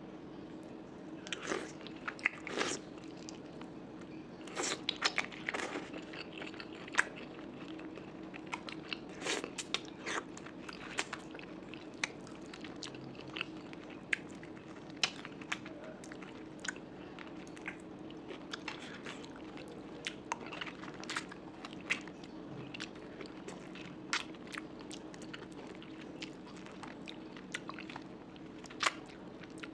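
Close-miked eating: a person chewing and biting into mutton curry, with irregular sharp mouth clicks and smacks, several a second, over a faint steady hum.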